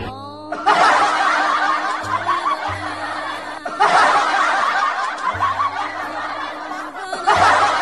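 Laughter from many people at once, starting about a second in and going on nearly throughout, over faint background music.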